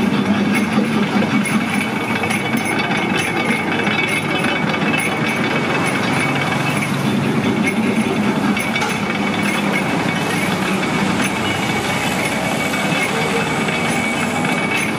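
Belt-driven sugarcane juice extractor running steadily, its gears and rollers grinding cane stalks, with a low hum and a steady high whine.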